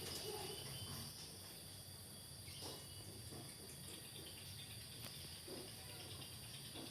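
Faint, steady, high-pitched insect chirring, like crickets, under quiet room tone, with a couple of soft knocks.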